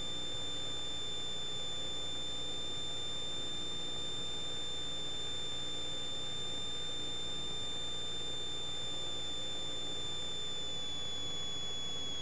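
Steady high-pitched electrical whine in a Cessna 172's recorded radio and intercom audio, one constant tone with a faint hiss beneath, its pitch dropping slightly near the end.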